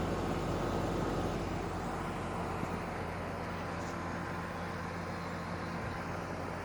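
Heat pump running with its compressor on: a steady hum carrying several steady tones over a bed of noise.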